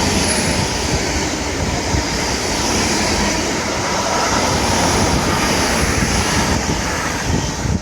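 Strong wind buffeting the phone's microphone: a steady, loud rushing with heavy low rumble, in wind-driven rain.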